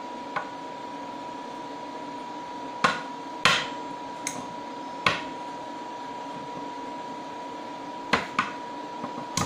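Sharp knocks of a hard object against a graphite ingot mold, knocking out a freshly solidified silver solder ingot: single knocks spaced a second or more apart, the loudest about three and a half seconds in, with a quick pair near the end.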